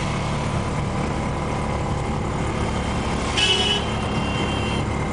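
Auto-rickshaw engine running and road noise, heard from inside the open cab. A horn honks briefly about three and a half seconds in, followed by a fainter held horn tone for about a second.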